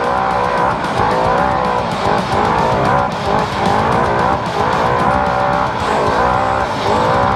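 Naturally aspirated side-by-side UTV engine running hard at race pace, its pitch rising and falling continuously, with music playing along with it.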